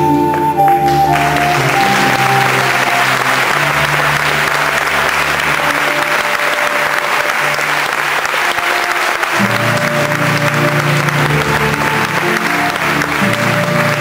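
Audience applauding over slow instrumental music with long held notes; the clapping breaks in about a second in and keeps going under the music.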